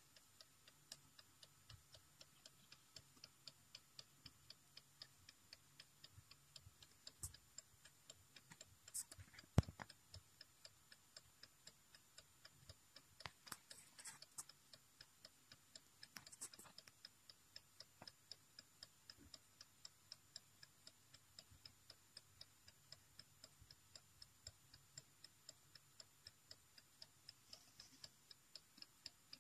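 Mechanical clock in a carved wooden case ticking faintly, quickly and evenly. A sharp knock about ten seconds in and a few clicks a little later stand out above the ticking.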